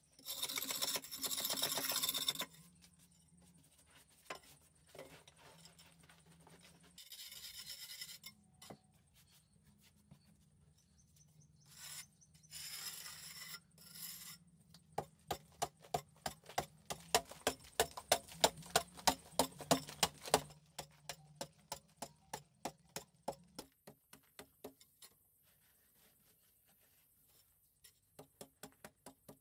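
A hand hoe scraping and chopping into a packed-earth wall: several spells of gritty scraping, then a run of quick, sharp strikes about three a second, with more strikes near the end.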